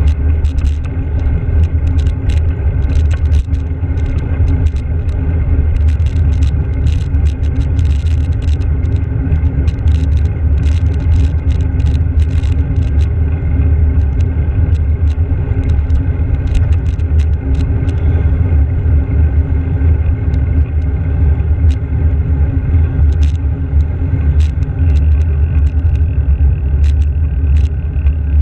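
Steady wind rumble and road noise on a handlebar-mounted GoPro Hero's microphone while cycling along a road, with frequent sharp clicks and rattles.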